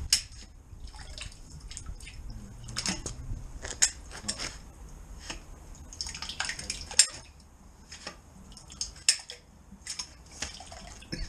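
Drain rod with a rubber plunger head being worked up and down in a manhole chamber flooded with sewage from a blocked drain: irregular sharp splashes and sloshing of the waste water.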